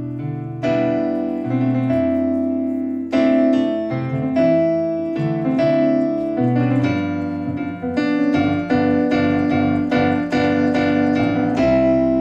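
Electronic keyboard played with a piano sound: bluesy chords in the right hand over a left-hand bass line, with no singing. About two-thirds of the way in the chords start coming faster and more evenly, roughly two a second.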